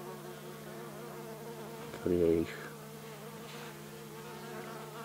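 Honeybees humming steadily, a low even buzz of a few constant tones, with a brief louder sound about two seconds in.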